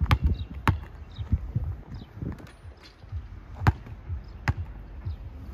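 A basketball bouncing on a hard outdoor court: two sharp bounces near the start, a pause, then two more about two-thirds of the way through.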